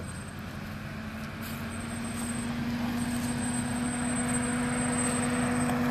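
Toyota FJ Cruiser's engine running at steady revs under load while crawling over an off-road obstacle, growing steadily louder.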